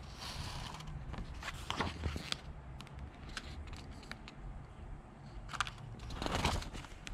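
Pages of a paperback picture book being turned and handled: several brief paper rustles with a few light clicks.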